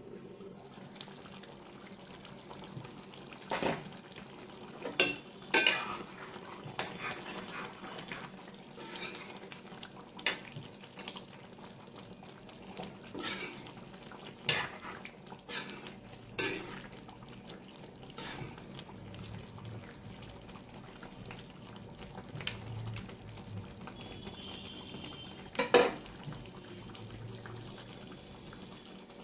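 A ladle stirring thick mutton curry in a black kadai, knocking and scraping against the pan with sharp clinks every second or two, the loudest a few seconds in and again near the end, over a low steady simmer.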